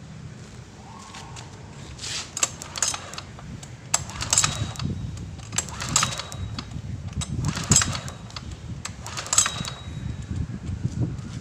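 Honda portable generator's recoil starter cord pulled again and again, about every second and a half. The engine turns over briefly after each pull without catching.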